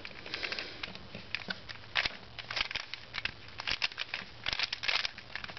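Plastic 3x3 Rubik's cube being turned by hand: quick clicking and clacking of its layers rotating, coming in irregular runs of turns.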